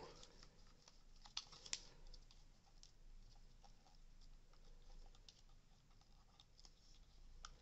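Quiet handling of a Dyson V8's motor and circuit board as they are eased back into the plastic housing: faint scattered plastic clicks and ticks, with two sharper clicks about a second and a half in.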